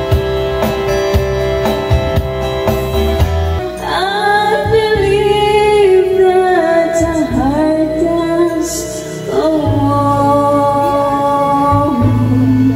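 A woman sings into a handheld microphone over backing music, drawing out long held notes that slide in pitch.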